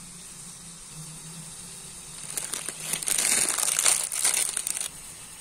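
Plastic wrapper of a Maggi instant noodle packet crinkling loudly as it is handled and opened, a dense crackly rustle lasting about two and a half seconds, starting a little after two seconds in.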